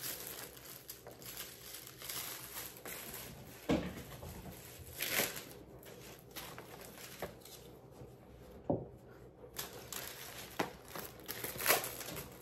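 Paper and card party decorations being handled and unfolded: crinkling and rustling, with a few scattered sharp taps and knocks.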